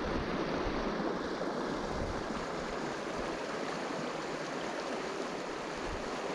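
River current rushing steadily, with irregular low gusts of wind buffeting the microphone.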